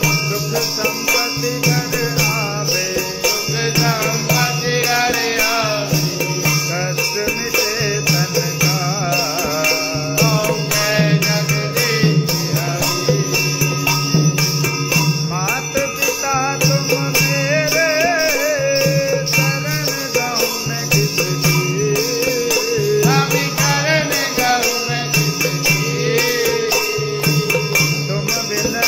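Devotional aarti music: bells jingle in fast continuous strokes over a pulsing low beat, with a wavering melodic line above.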